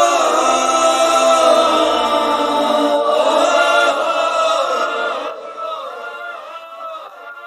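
Layered male vocal harmonies held and swelling on a sustained sung note, with slow bends in pitch, fading away over the last few seconds.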